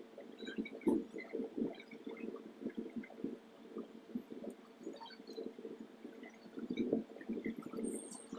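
Soft, irregular squishing and crackling of whipped cream being worked on a cake, over a faint steady hum.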